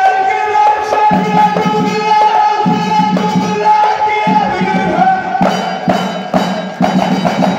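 Moroccan Houara folk music: hand frame drums and drums beating a rhythm under a steady, sustained melody line. The drumming becomes a dense, even beat about five and a half seconds in.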